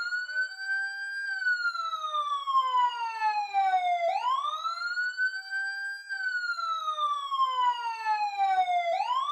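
Police siren wailing: one tone climbs over about two seconds, then slides slowly down for about three, and the rise-and-fall cycle repeats about every four seconds.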